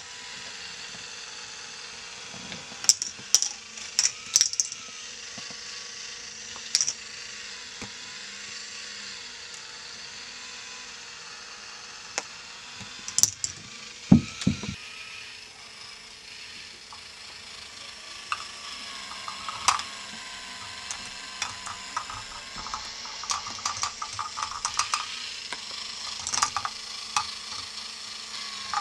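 K'nex revolving ball lift running: a steady whir from the turning wheel under irregular sharp clicks and knocks as the plastic balls rattle against the K'nex rods and connectors. The clicks come in a group a few seconds in, hit hardest around the middle, and grow denser near the end.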